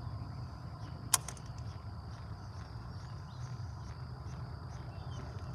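Insects chirring steadily in a high, even band. A single sharp click comes about a second in, followed by a few faint ticks.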